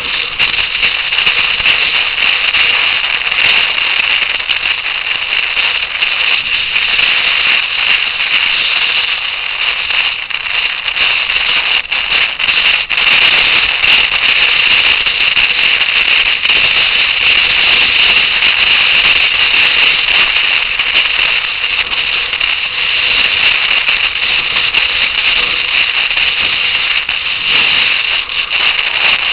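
Wind rushing over the camera microphone on a moving motorcycle: a loud, steady crackling hiss, with no engine note standing out.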